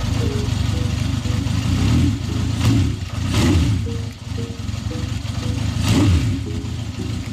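Honda CB750 Four's air-cooled inline-four engine running and being revved in several short blips, with background music.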